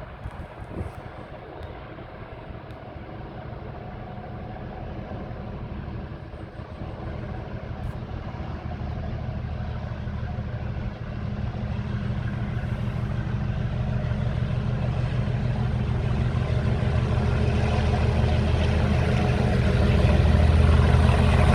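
Class 37 diesel-electric locomotive 37608, with its English Electric V12 diesel, working hard under power as it hauls a dead electric unit. It grows steadily louder throughout.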